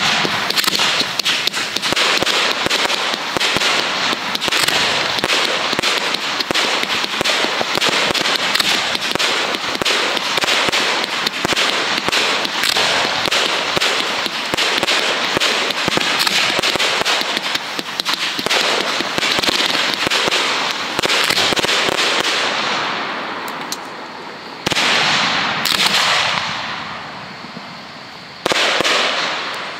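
Professional 1.3G display fireworks going off: a dense, continuous barrage of bangs and crackling for about twenty seconds that then fades, followed by three sudden loud bursts near the end, each tailing off.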